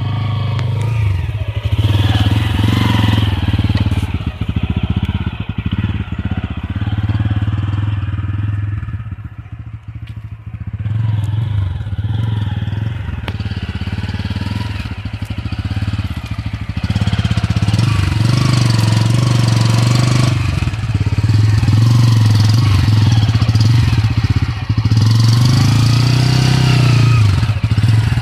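Bajaj Pulsar N160's single-cylinder engine revving up and down as the motorcycle is worked slowly through loose dirt and ruts. It eases off for a moment about ten seconds in, then runs harder and louder through the second half.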